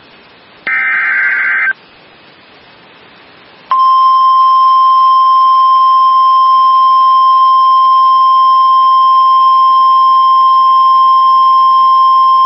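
NOAA Weather Radio alert signal. About half a second in comes a one-second warbling data burst, the SAME header that encodes the warning. Two seconds of radio hiss follow, then the 1050 Hz warning alarm tone, a single loud steady beep held for about nine seconds, which announces that a warning message follows.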